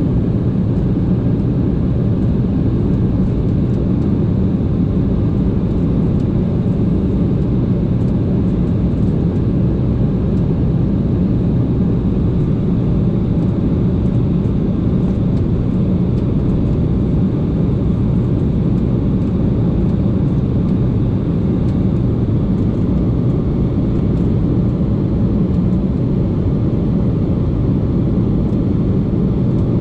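Airliner in flight heard from inside the passenger cabin: a steady, loud low rumble of engines and airflow that does not change.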